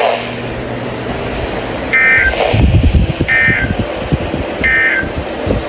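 Emergency Alert System end-of-message signal: three short data bursts of warbling, buzzy tones about a second and a half apart, closing out the alert. A loud low rumbling noise runs underneath from about two seconds in.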